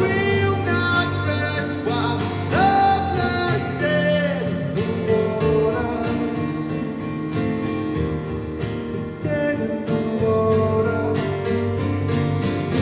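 Live band performance: a male vocalist singing over strummed guitar.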